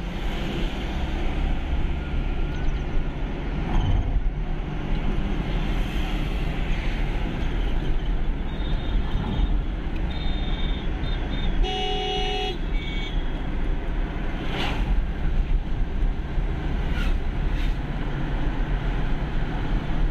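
Steady engine and tyre noise inside a moving car's cabin on the highway, with a vehicle horn sounding once for about a second around the middle.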